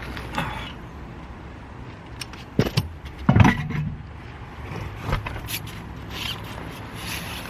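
Metal tools knocking, clinking and scraping against car parts. There are a few sharp knocks between about two and a half and three and a half seconds in, and another about five seconds in.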